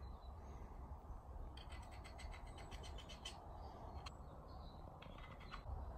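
Faint outdoor background: a low steady rumble with scattered bird chirps, two short rapid clicking trills and a single sharp click about four seconds in.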